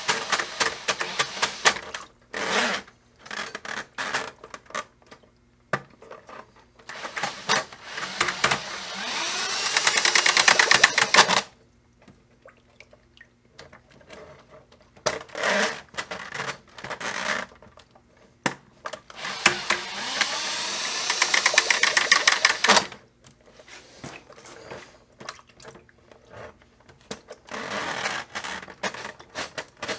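Drill spinning a drain snake cable into a clogged laundry tub drain. It makes two long runs of about four seconds each that cut off abruptly, with short trigger bursts and rattling clicks between them.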